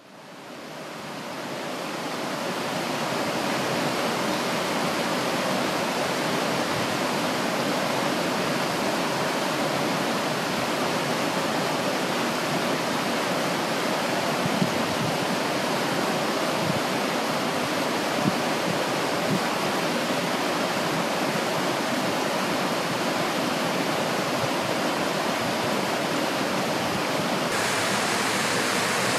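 Steady rush of water flowing over a shallow, stony riverbed, fading in over the first few seconds. Near the end it switches to the brighter, hissier splash of a small stream cascading over rocks.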